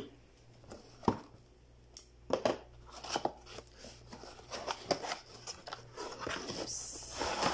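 Stainless steel spoons and forks on their cardboard display card being handled: scattered light clicks and taps, with a short rustle near the end.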